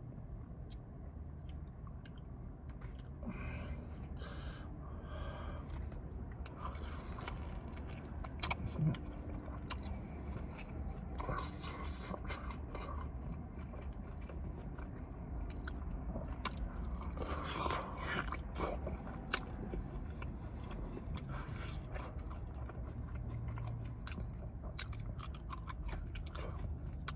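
A person chewing and biting food close to the microphone, with small crunches, clicks and wet mouth sounds, a little louder now and then.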